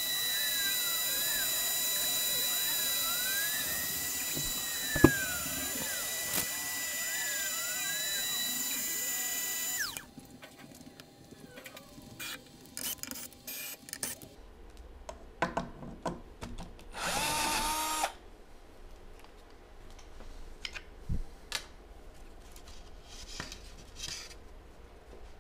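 CNC router spindle running steadily with a high whine as the bit cuts into plywood, stopping suddenly about ten seconds in. After that come scattered clicks and knocks as the cut board is handled and lifted off the machine bed, with a brief rushing noise in the middle.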